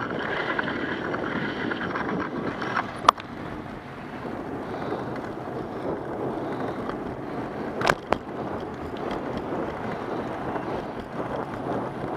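Wind on the microphone over the steady rolling of wheels on a smooth cement path, with a sharp knock about three seconds in and two more close together about eight seconds in.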